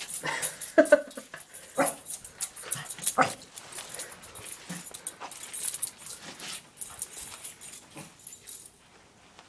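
A small dog barking sharply a few times in the first three seconds or so, amid scuffling and rustling close to the microphone as it plays, which dies down near the end.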